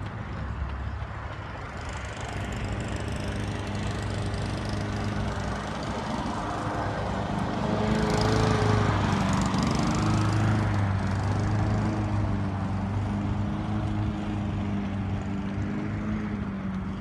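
A small engine running steadily, growing louder about halfway through and then easing off again.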